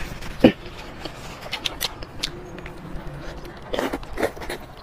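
Paper tissue rustling as a mouth is wiped, with scattered wet mouth clicks and one sharp click about half a second in, then rice noodles being slurped up near the end.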